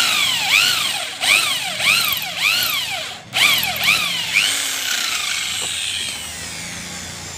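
Electric hand drill boring out the threaded mirror-mount socket in a Honda Activa scooter's handlebar, drilling the threads out plain. The trigger is pulsed so the motor's whine rises and falls again and again, with a short stop a little after three seconds. After about four and a half seconds the motor winds down slowly.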